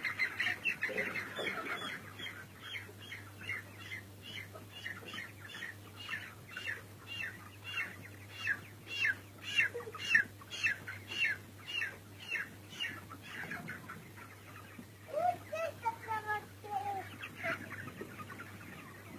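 Chickens in a poultry shed calling: a dense run of short, high, falling calls, two or three a second, with a few lower calls near the end, over a faint steady hum.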